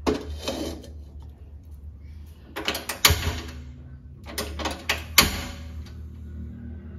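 An aluminium wok is set down on the gas stove's metal pan support with a scrape and clank. This is followed by two bursts of sharp clicks and clatter, about two and a half and four and a half seconds in.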